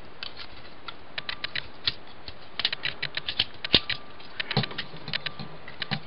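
Hard plastic clicks and taps from a Transformers Generations Blitzwing action figure's joints and parts as they are bent and swung by hand, irregular and in small clusters.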